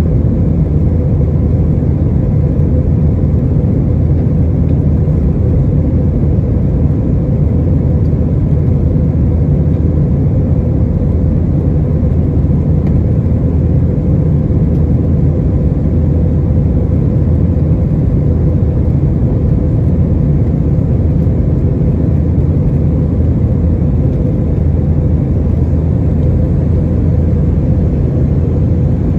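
Airbus A321-231 cabin noise during the climb after takeoff: its IAE V2500 engines and the rushing airflow give a loud, steady low rumble. A faint steady hum runs through it.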